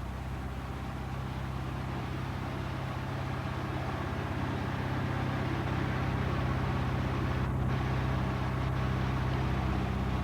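A boat's engine running steadily with a low hum, growing slightly louder over the stretch.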